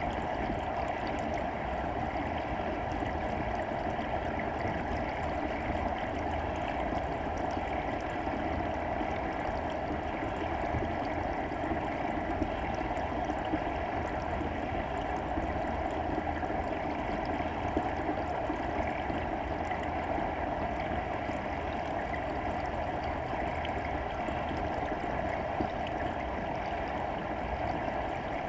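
Steady underwater rush of moving water around a submerged camera, with a few faint scattered ticks.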